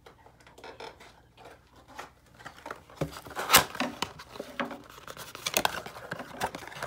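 Cardboard trading-card blaster box being handled and its flap pried open: faint light rustling at first, then a run of sharp scrapes, snaps and crinkles from about halfway, the loudest one just past the middle.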